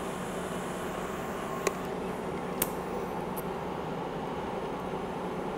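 TIG welding arc being struck on steel pipe, likely an HF start: two sharp snaps about a second apart, then a fainter one, over a steady background hiss.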